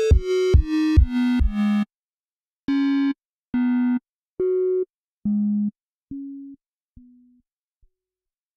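Electronic dance music ending: synthesizer notes step down in pitch over a kick drum, about two a second. The beat then stops, and a run of separate, briefly held synth notes follows, each fainter than the last, until the track fades out.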